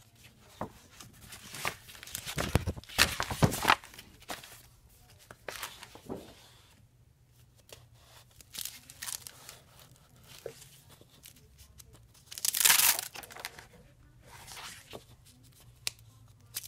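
Clear plastic sheet protectors crinkling and rustling as they are handled and turned, in irregular bursts, loudest a few seconds in and again about three-quarters of the way through.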